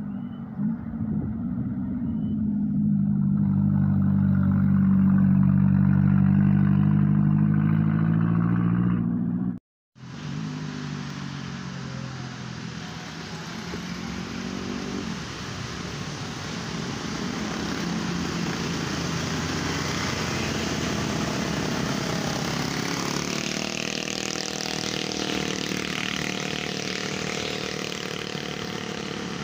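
Vehicle engines pulling round a hairpin bend. At first a small truck's engine gives a loud, steady deep drone. After a short break about a third of the way in, cars and a motorcycle pass with tyre noise over their engines, and engine pitch rises twice in the second half.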